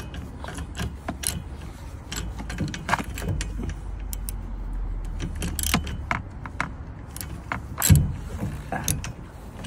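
Socket ratchet clicking in uneven runs as the 15 mm nut on a wiper arm is wound down and tightened, with a louder knock about eight seconds in.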